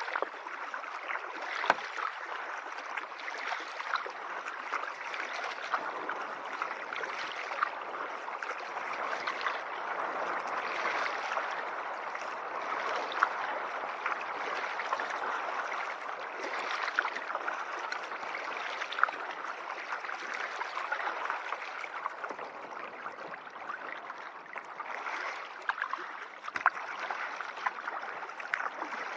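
Water lapping, trickling and dripping around a moving kayak's hull, with many small splashes and clicks that swell every second or two.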